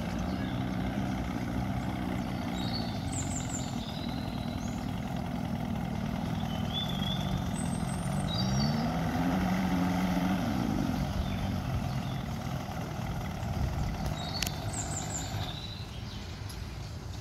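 Small boat's outboard motor running at idle, rising in pitch for a couple of seconds about seven seconds in and then settling back.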